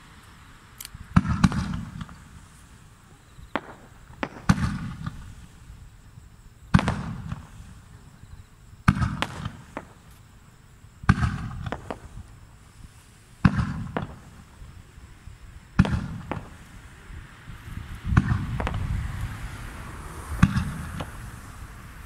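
Aerial fireworks shells going off one after another, a sharp bang about every two seconds, each followed by a low rumbling echo.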